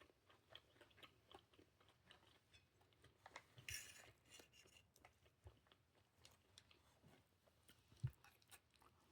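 Faint chewing and crunching of food, with scattered small clicks, a short crunchy burst about three and a half seconds in and a soft low thump near eight seconds.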